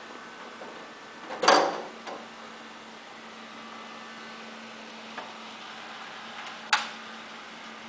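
Desktop PC running with a steady hum from its fans, with a loud clatter about one and a half seconds in as the metal side panel of the case is handled and swung open, and a sharp click near the end.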